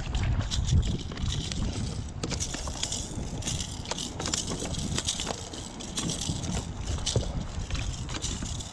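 Wind buffeting the microphone as a low rumble, with many short knocks and rustles from handling the fish and gear on the kayak.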